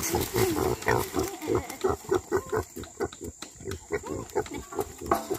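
Pigs grunting and squealing: a busy run of short calls, several a second.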